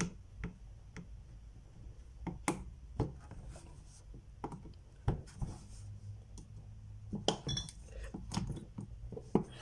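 Scattered small clicks and taps as the retaining tabs on the back of a picture frame are pushed down against the backing board, a few louder clicks among them.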